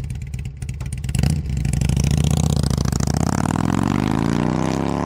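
Motorcycle engine running with an even pulsing beat, blipped sharply about a second in, then revving up steadily in pitch toward the end.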